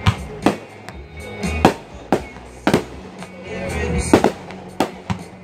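Aerial fireworks bursting, about eight sharp bangs spaced irregularly, over music playing throughout.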